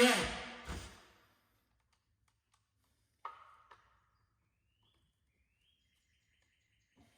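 A handheld power tool's electric motor winding down to a stop after the trigger is released, then near silence with two faint clicks about three seconds in.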